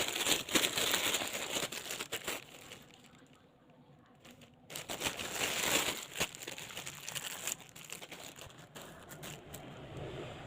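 Plastic packaging crinkling and crackling as it is handled and opened, in two spells with a quieter pause in between.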